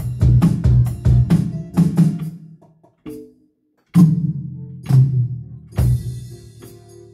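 Roland electronic drum kit played through its sound module: a run of drum hits, about three a second, then a sudden stop about three seconds in. After the pause come a few heavy, spaced accents, the last with a cymbal ringing out.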